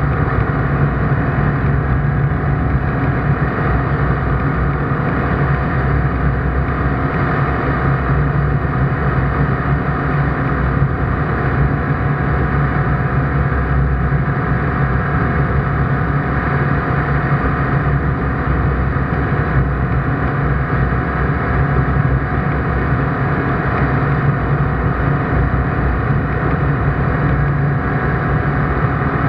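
ICP Bingo ultralight's engine and propeller droning steadily in cruise flight, heard loud from inside the cockpit.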